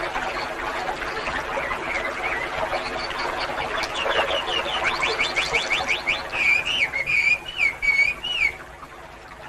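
A steady chorus of frogs with a bird singing over it: a fast run of short descending notes about four seconds in, then looping whistled phrases that stop near the end.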